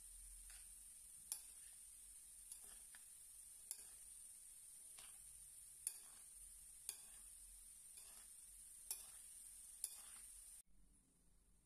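Spoon clicking against the side of a bowl while a mayonnaise-dressed vegetable salad is stirred: a sharp click about once a second over a faint steady hiss, which cuts off suddenly near the end.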